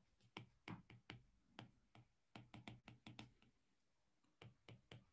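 Faint, irregular light taps and clicks of a pen stylus on a tablet screen during handwriting, about fifteen small ticks in uneven clusters.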